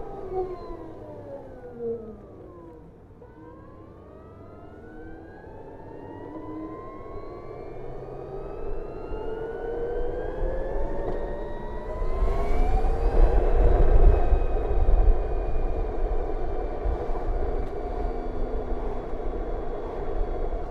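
BMW CE 04 electric scooter's motor whining: the whine falls as the scooter slows for the first few seconds, then climbs steadily as it accelerates again. Wind and road rumble build with the speed and are loudest about two thirds of the way in.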